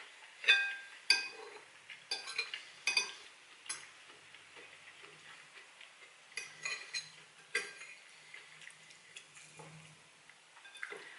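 A metal fork clinking and scraping against a ceramic bowl-plate, with a brief ringing tone on the sharper taps. The taps come in clusters, most in the first four seconds and again around six to eight seconds in.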